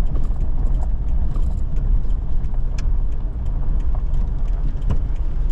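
Steady low rumble of a vehicle being driven, heard from inside the cabin: engine and tyre noise on the road.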